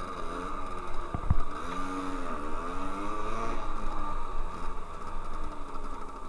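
Simson Schwalbe moped's single-cylinder two-stroke engine running under way, its pitch rising and falling several times with the throttle. There are two low thumps a little over a second in.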